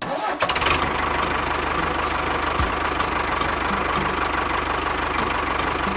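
A small engine running steadily at idle with an even, fast low pulsing.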